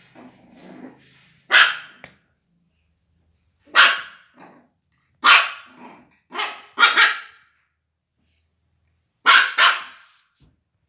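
Shih Tzu puppy barking: about eight short, sharp barks spaced a second or two apart, some in quick pairs, with quiet between.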